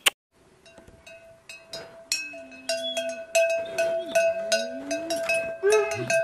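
A metal bell on a Tibetan mastiff's collar clanking at every step as the dog walks, about three to four strikes a second, each with the same ringing tone. A low wavering vocal sound rises and falls around the middle and again near the end.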